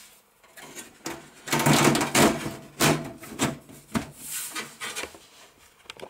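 Computer case side cover being slid into place, scraping and clattering, then a few shorter knocks and clicks as it is seated.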